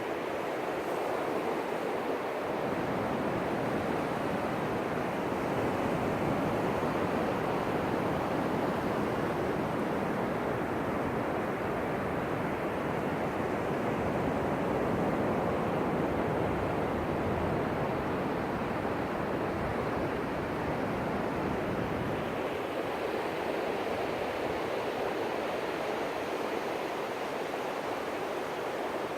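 Ocean surf: a steady wash of breaking waves that swells gently and eases off again toward the end.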